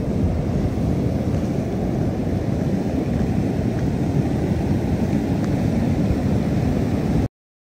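Flash-flood water rushing through a washed-out river crossing, a steady low roar that cuts off abruptly near the end.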